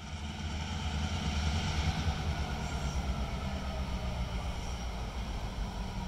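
Diesel freight locomotive's engine running as it approaches slowly along the track: a steady low rumble with a whine above it, swelling slightly over the first couple of seconds.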